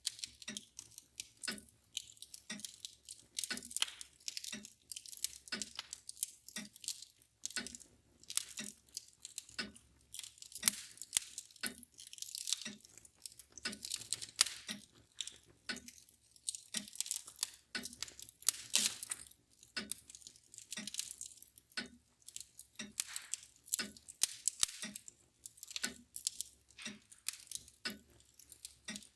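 Wood fire crackling and popping with irregular sharp snaps, over the steady ticking of a mantle clock at about one tick a second.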